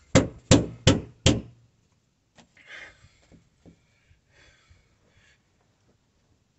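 Four quick hammer blows, about a third of a second apart, nailing insulation board overhead to the underside of a cabin floor.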